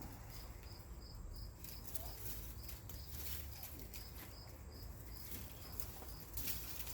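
Cricket chirping steadily outdoors, a faint high chirp about three times a second, with light rustling and low wind-like rumble underneath.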